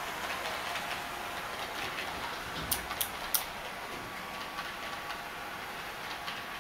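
HO gauge model electric train running on its track, wheels ticking over the rail joints, with a thin steady whine from its motor, which a microcomputer PWM controller drives to imitate a real train's traction sound. Three sharp clicks come close together a little before halfway.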